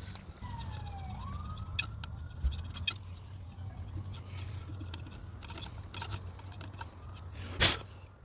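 Sharp metallic clicks and clinks from parts and tools being handled, a loud one near the end, over a steady low hum with faint gliding tones.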